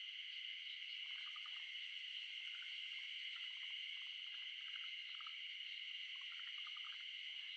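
Outdoor wildlife chorus: a steady high-pitched drone with short trilled calls repeating irregularly, roughly once a second.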